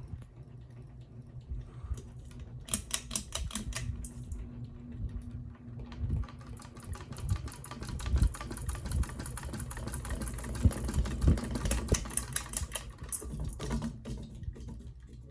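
Ceiling fan running, with a rapid clicking tick that comes and goes over a low rumble; the owner suspects a loose blade.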